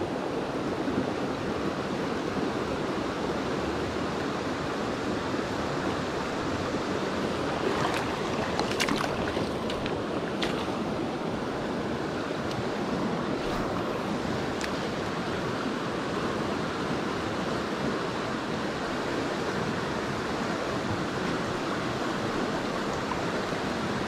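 Rushing stream water, a steady, even noise, with a few faint clicks around the middle.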